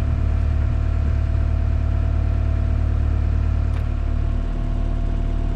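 Skid steer engine running steadily, its pitch and level easing slightly about four and a half seconds in.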